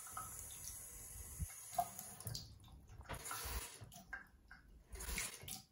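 Bathroom faucet running a thin stream into the sink basin, faint.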